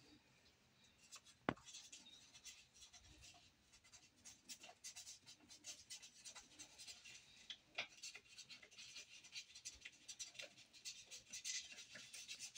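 Faint scratching and small clicks, with one sharper click about a second and a half in.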